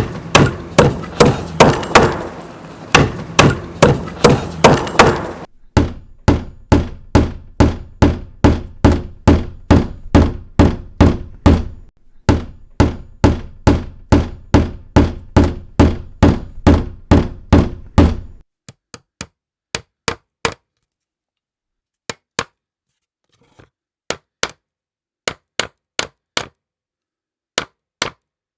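Hammer striking hard over and over, about two blows a second. For most of the time the blows come in a steady run over some background noise; in the last third they come in short groups of two to four blows with silence between.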